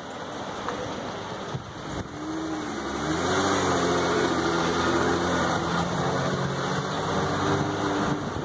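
Car engine running under a steady road noise. About two seconds in its pitch rises and wavers as it picks up speed, then holds a steady hum until near the end.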